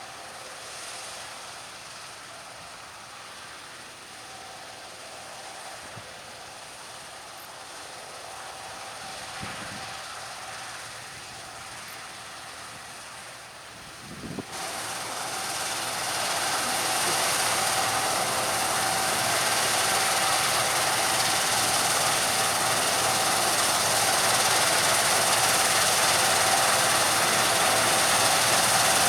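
Claas Lexion 750 combine harvester running as it cuts wheat: a steady machinery hum with a held whine. It is distant at first, then much louder from about halfway as the machine comes close.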